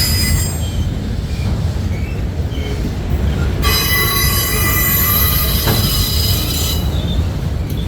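Freight train cars rolling past with a steady low rumble. About three and a half seconds in, the wheels break into a high-pitched, many-toned squeal that lasts about three seconds; there are briefer squeaks at the start and in between.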